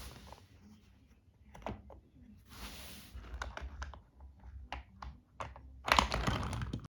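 BRIO wooden toy train pieces and wooden track clicking and knocking together as they are handled, a scattering of light clicks with a denser, louder clatter near the end.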